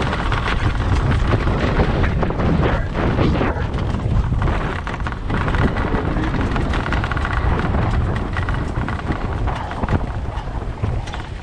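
Dual-sport motorcycle rolling down a rough track of loose slate: a continuous rough rumble of tyres on stones and the bike jolting over bumps, with many small knocks.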